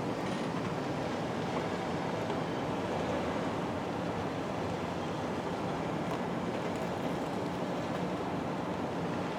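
Steady road and engine noise inside a moving car's cabin, an even rumble with no distinct events.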